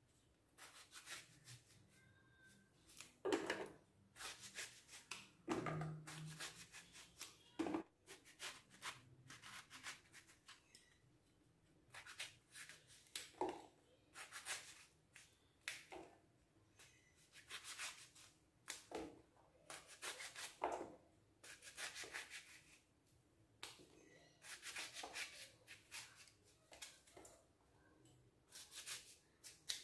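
Knife cutting through brinjal (eggplant) held in the hand, with soft, irregular slicing scrapes and small clicks, and the occasional knock of a cut piece landing in a steel plate.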